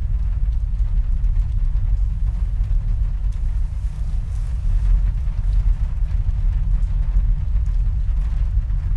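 A steady, deep rumble with nothing above it but a faint hiss.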